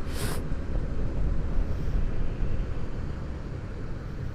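Riding sound of a Honda CB150R: the 150 cc single-cylinder engine running under a steady low rumble of wind and road noise, with a short hiss in the first half-second.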